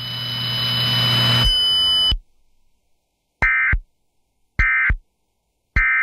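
Emergency Alert System end-of-message data tones: three short, identical two-tone digital bursts about a second apart, signalling the end of the broadcast alert. Before them, a steady hiss with a high tone grows louder and cuts off about two seconds in.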